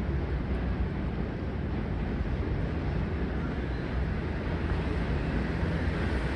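Approaching New York City subway train (an R142 on the 2 line) rumbling steadily on elevated track, growing slightly louder near the end as it nears the station.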